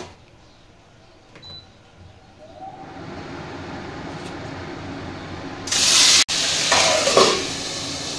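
Magur catfish pieces going into hot mustard oil in a kadai: a loud burst of fierce sizzling and spattering about six seconds in, settling to a steady sizzle under a steel lid near the end.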